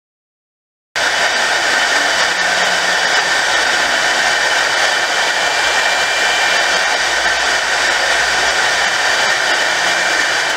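Small electric multirotor drone's motors and propellers whirring steadily, a loud rushing noise with several steady high whining tones over it, starting abruptly about a second in.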